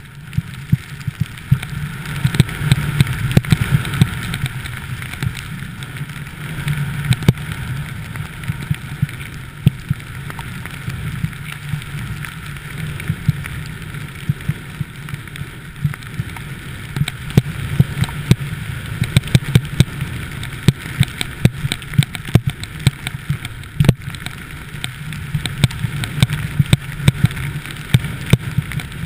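Wind rushing over a body-worn action camera's microphone and the steady hiss of sliding fast down a snow slope, with frequent sharp knocks and clatters.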